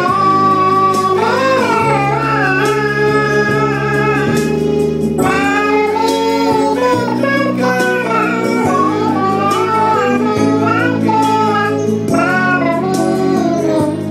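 A man singing a slow melody with long held, wavering notes into a microphone, over a steady instrumental accompaniment that changes chord every second or two.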